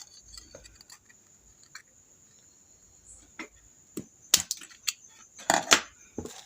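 Sharp metallic clicks and snips as a small piece is cut from a thin sheet-metal mosquito-coil stand: a few scattered ones, then a cluster of louder ones about four to six seconds in.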